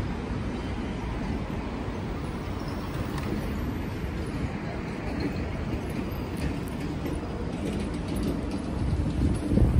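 Steady low rumble of passing vehicles: city street traffic noise, growing a little louder near the end.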